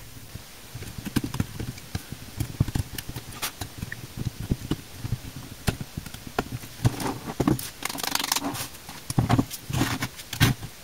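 Needle-nose pliers picking at hardened tan glue inside a computer power supply: irregular small clicks, taps and knocks. The heat-darkened glue is brittle and crumbles out as it is nibbled away.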